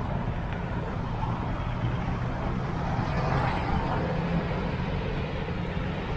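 Steady low rumble of road and vehicle noise picked up while riding a bicycle.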